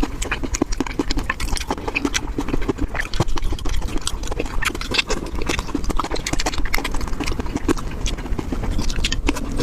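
Close-miked mukbang eating sounds: a fast, irregular run of wet clicks and smacks from a mouth chewing seafood.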